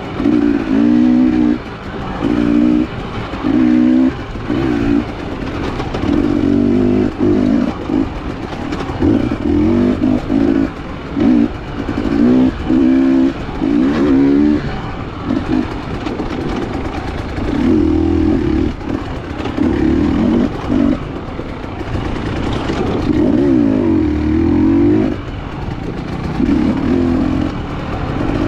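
Dirt bike engine revving in short bursts, its pitch rising and falling every second or two as the throttle is opened and closed.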